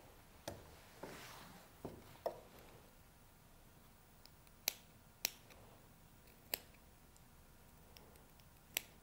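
Small sewing scissors snipping about eight times, in short sharp clicks at an uneven pace, clipping into the curved seam allowance of a shirt collar stand.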